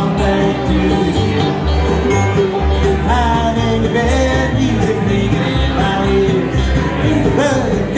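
Live bluegrass band playing: upright bass plucking a steady beat under mandolin, acoustic guitar and banjo.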